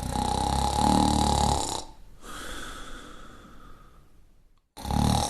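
A person snoring. A loud rattling snore on the in-breath is followed by a softer, hissing out-breath, and the next snore starts near the end.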